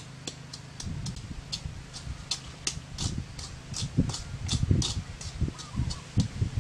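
Short high chirps repeating evenly, about three a second, over irregular low rustling and knocks from hands handling a shell and knife. The rustling and knocks grow louder in the second half.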